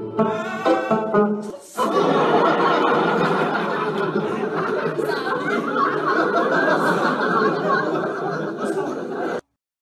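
Plucked-string music for the first second and a half, then several seconds of loud laughter that cuts off suddenly near the end.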